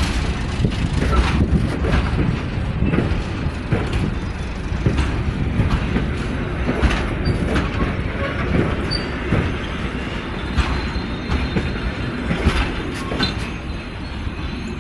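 Heritage railway passenger carriages rolling slowly past at close range: a steady low rumble with irregular clicks and knocks from the wheels over the rail joints. A few brief, thin, high wheel squeals come in now and then.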